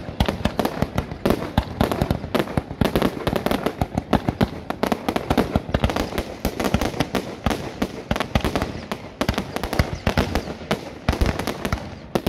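Aerial fireworks shells launching and bursting in quick succession, a dense run of sharp bangs, many a second, with no let-up.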